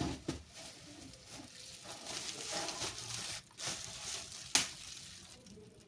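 Rustling of parcel packaging being handled, with a knock right at the start and a single sharp click about four and a half seconds in.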